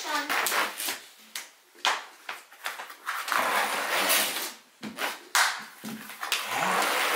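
Flat-pack furniture panels being handled and fitted together: a run of separate knocks and clicks, with stretches of rustling and scraping in the middle and near the end.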